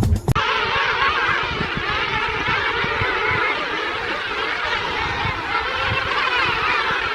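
A dense chorus of many birds calling and chattering together, a steady overlapping din of short wavering calls, right after a brief burst of percussive music cuts off near the start.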